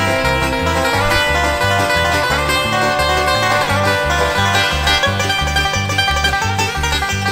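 Upbeat bluegrass-style music with plucked strings over a steady bass line that alternates between two notes, about two a second.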